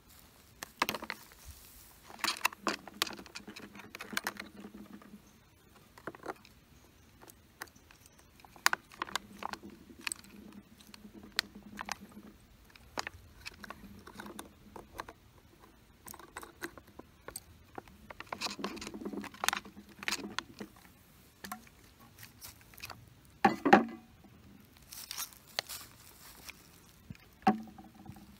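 Handling a plastic squeeze pouch of stream water and bottles on a wooden camp table: irregular crinkles, rustles and small clicks of plastic and caps, with a sharp knock about four seconds before the end.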